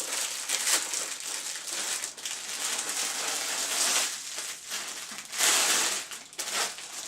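Packaging being crinkled and pulled off new fishing rods, in irregular rustling surges, the loudest about five and a half seconds in.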